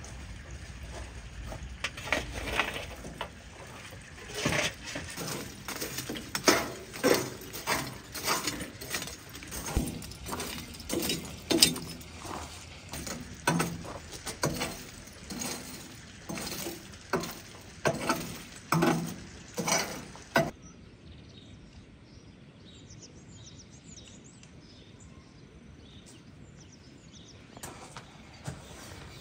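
Lumps of charcoal clinking and knocking against each other and the brick grill pit, a long uneven run of sharp clinks that stops suddenly about twenty seconds in. Faint birdsong follows.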